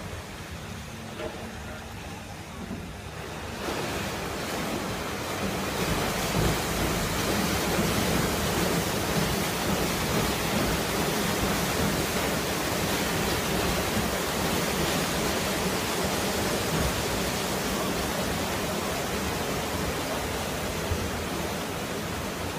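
Side paddle wheels of the 1901 Lake Lucerne paddle steamer Uri churning the water as the boat pulls away from the pier: a steady rushing splash that swells about four seconds in and grows louder again a couple of seconds later.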